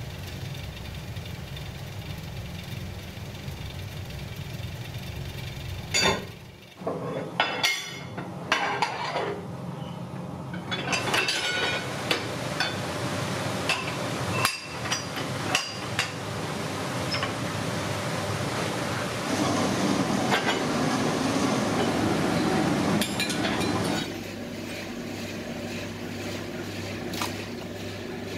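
Metal press moulds clinking and knocking as they are handled, a series of sharp strikes over a steady machine hum, with a louder stretch of rushing noise later on.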